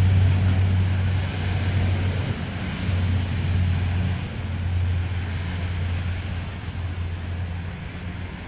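Lockheed Martin CC-130J Super Hercules at takeoff power on its takeoff roll and liftoff. Its four Rolls-Royce AE 2100 turboprops with six-bladed propellers give a steady low propeller drone under a broad rushing noise, which slowly fades as the aircraft pulls away.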